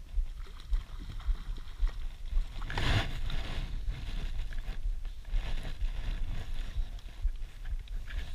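A short splash about three seconds in, where the fly line enters the water, typical of a hooked rainbow trout breaking the surface. Under it runs a low, uneven rumble from wind buffeting and handling on the microphone.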